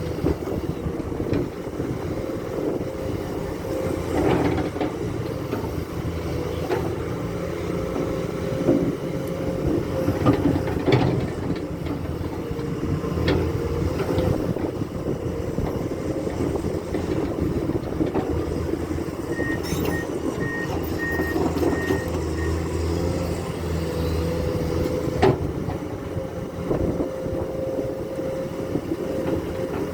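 Komatsu excavator's diesel engine running steadily under work, with occasional sharp knocks. About two-thirds of the way through, a backup alarm gives a quick run of short beeps for about three seconds.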